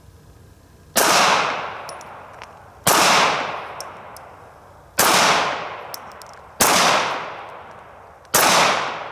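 Five single pistol shots from a SIG P238 in .380 ACP, fired slowly about one every two seconds, each sharp report dying away over a second or so.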